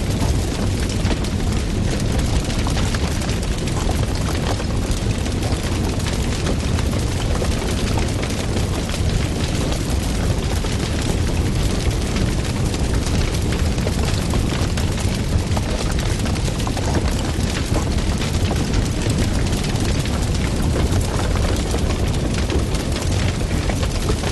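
Loud wood fire crackling and popping steadily, dense sharp crackles over a deep low rumble of flames.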